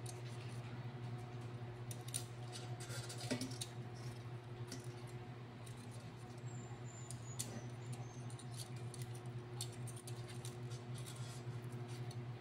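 Light clicks and taps of metal tongs against chicken wings and the metal air fryer basket as the wings are turned, over a faint steady low hum.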